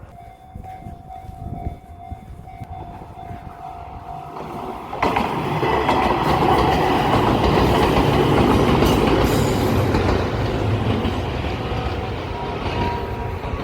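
Izuhakone Railway train passing at a level crossing: a sudden loud rush of wheel and rail noise about five seconds in, which eases off slightly near the end. Before the train arrives, a steady tone sounds for about five seconds.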